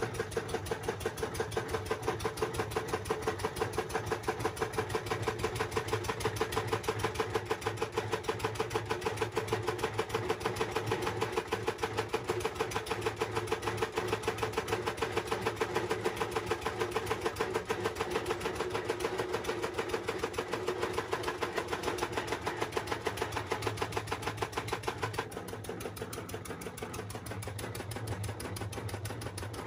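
Engine of a palm fruit milling machine running steadily with a fast, even beat. The sound turns duller near the end.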